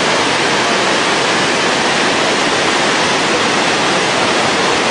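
Swollen river in flood rushing past in a loud, steady torrent.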